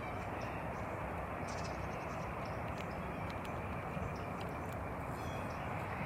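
Outdoor morning ambience: a steady rushing background noise with faint, brief bird chirps scattered above it.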